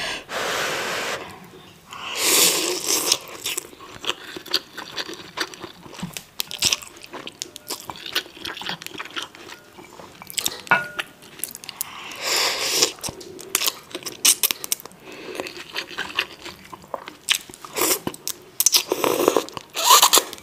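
Close-miked slurping of instant ramen noodles: several long, hissy slurps, with wet chewing and small mouth clicks between them.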